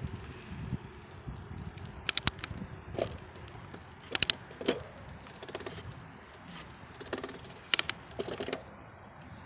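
Bicycle rattling as it rolls along a concrete path: short, irregular clusters of sharp clicks and clatters over a low hum of tyre and wind noise.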